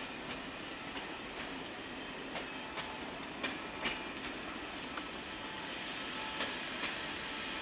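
SNCF Z 7300-series (Z2) electric multiple unit rolling slowly through the station, its wheels clacking irregularly over rail joints and points under a steady rumble.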